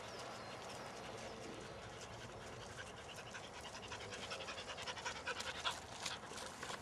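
Border collies panting as they trot along, with footsteps crunching on a gravel path that grow louder and quicker in the second half.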